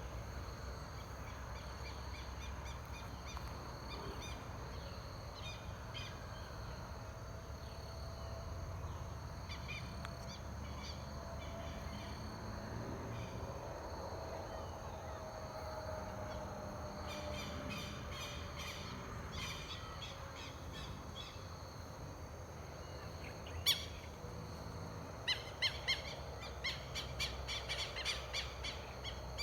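Birds chirping and calling over a steady outdoor background, with a thin steady high tone running underneath. The chirps come thicker and louder near the end, just after a single sharp click.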